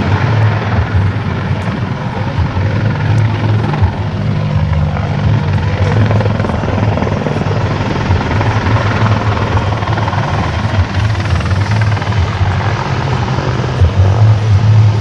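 AH-64 Apache attack helicopter flying low and manoeuvring: a loud, steady low beat from its main rotor over the noise of its twin turboshaft engines.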